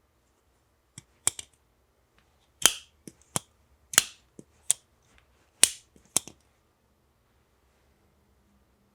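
Civivi Elementum Utility folding knife being opened and closed by hand: a series of about ten sharp clicks and snaps over five seconds, the loudest ones with a brief metallic ring.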